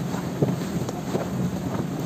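Outrigger fishing boat's engine humming steadily, with wind blowing across the microphone and a few short knocks, the sharpest about half a second in.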